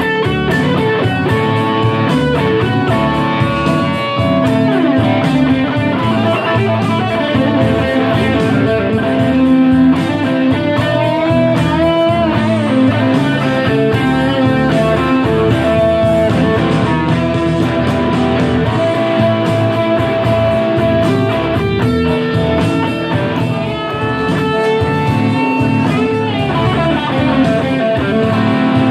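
Live band music led by electric guitar, played at a steady loud level with bending guitar notes.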